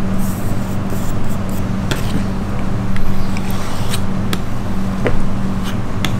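Steel knife blade handled against a leather strop: a few light clicks and faint scrapes as the edge is set down and drawn across the leather, over a steady low hum.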